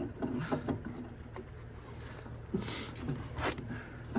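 Scattered light knocks and clicks of metal parts being handled while fitting a tractor's snowblower attachment frame, over a steady low hum.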